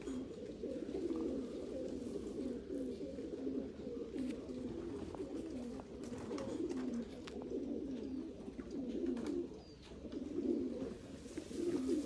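Racing pigeons cooing, many overlapping calls making a continuous low warbling chorus, with a few faint clicks.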